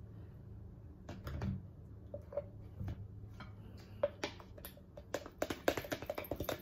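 A metal table knife scraping and clicking against the inside of a plastic Skippy peanut butter jar, digging out peanut butter. The clicks come quicker and closer together in the last second and a half.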